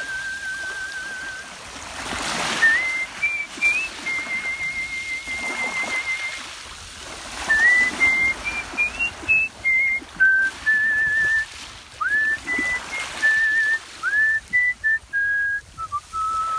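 A person whistling a melody by mouth in the art-whistling style: long held notes with a wavering vibrato, phrases of short notes slid up into from below, and brief pauses between phrases.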